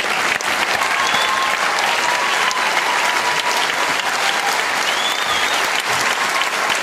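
Large arena crowd applauding a finished badminton match: steady, dense clapping with a faint held whistle-like tone over it.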